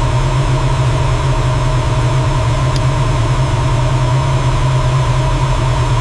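Steady, loud engine drone with a constant low hum and hiss above it, the sound of a jet aircraft engine running.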